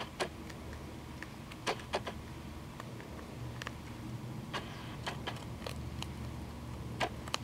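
Cottontail rabbit gnawing a hard seed treat bar held in the hand: scattered short, dry crunches at an uneven pace.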